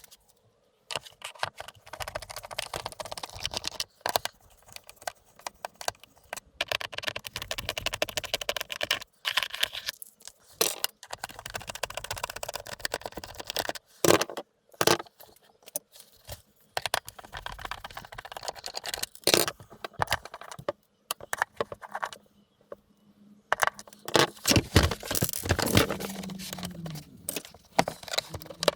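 Irregular clicks, clatter and scraping as a vacuum cleaner's housing parts and screws are handled and taken apart, with a few louder knocks in between.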